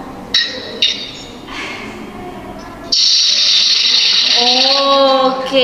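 Loud, steady hissing from the kitchen end of a video call, starting abruptly about three seconds in, with a voice rising over it near the end.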